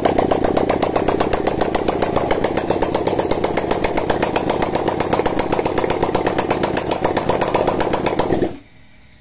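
Homemade 400 cc V-twin engine built from Honda Tiger parts, fed by a single carburettor, running steadily with even firing pulses, then shut off suddenly near the end. This is its first test run, with the carburettor not yet tuned.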